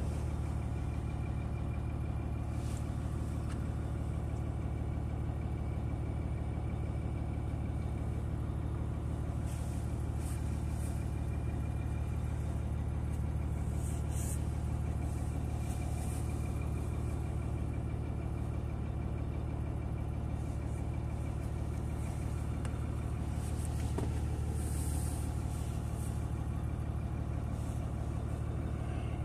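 Steady low mechanical hum that does not change, with a few faint clicks.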